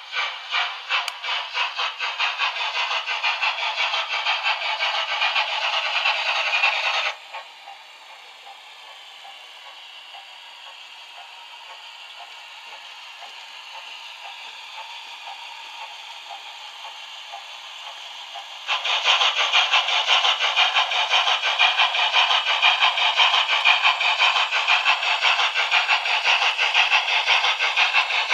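ZIMO DCC sound decoder in a Hornby model of the BR Standard Class 8 'Duke of Gloucester', playing steam-locomotive exhaust chuffs through its small speaker: rapid, even beats that drop to a much quieter steady sound about seven seconds in, then loud chuffing again from about nineteen seconds in.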